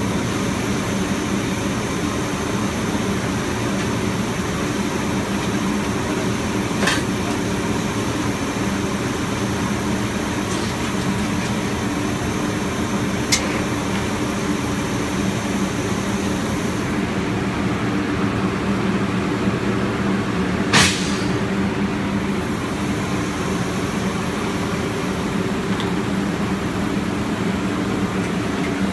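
Steady hum of CRT cutting machinery, with a few sharp knocks as the CRT tube is handled in the machine. A faint high whine in the hum stops a little past halfway.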